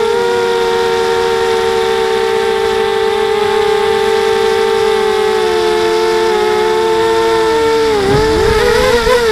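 Electric motors and propellers of an FPV multirotor, heard from its onboard camera: a loud, steady whine of two close tones that sags slightly in pitch while the throttle is held. About eight seconds in, the pitch wavers up and down with throttle changes and wind rumble rises on the microphone.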